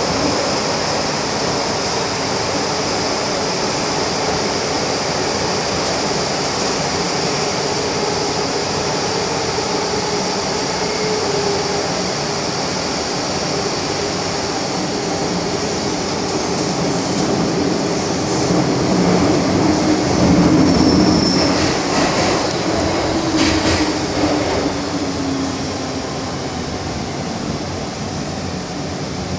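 MTR M-Train electric metro car running through a tunnel, heard from inside the car: a steady rumble of wheels on rail with a humming traction motor. About two-thirds of the way in it grows louder, with a few sharp clicks, and near the end a whine falls in pitch as the train slows for the station.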